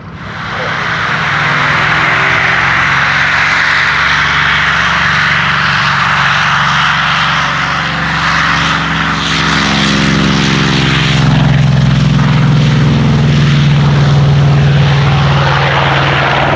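Goodyear FG-1D Corsair's Pratt & Whitney R-2800 eighteen-cylinder radial engine and propeller at takeoff power as the fighter takes off. The loud, steady engine sound builds within the first second.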